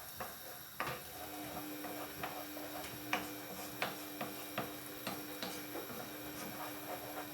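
Light, irregular clicks of a kitchen utensil against cookware, about one every half-second to second. A faint steady hum comes in about a second in.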